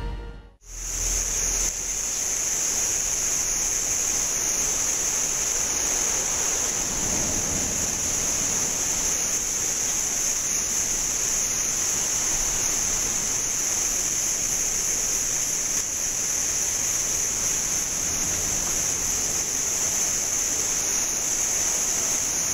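Steady outdoor ambience: an even rushing hiss, like wind or distant surf, under a constant high-pitched whine.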